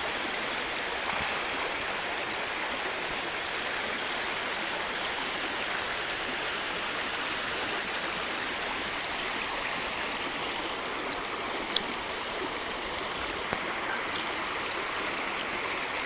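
Small forest creek running over rocks: a steady rushing of water. Two short clicks come near the end.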